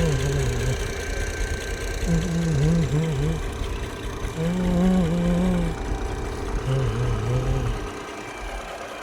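Heavy diesel engine running steadily at idle. Over it, a wavering pitched sound comes and goes four times, each time for about a second.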